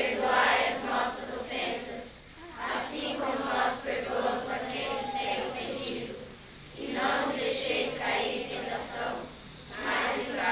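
A group of children reciting a prayer aloud in unison, in phrases with short breaks between them.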